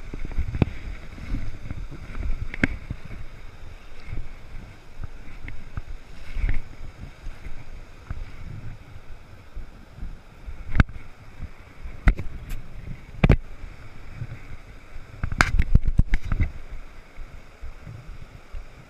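Moving river water and wind rumbling on the microphone, with several sharp clicks or knocks in the second half and a cluster of them near the end.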